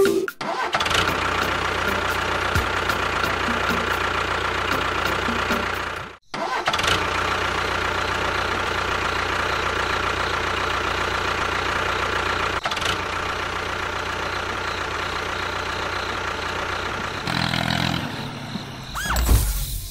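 A mini tractor's motor running steadily, cutting out briefly about six seconds in. Near the end the sound changes and gives way to a short wavering, sliding tone.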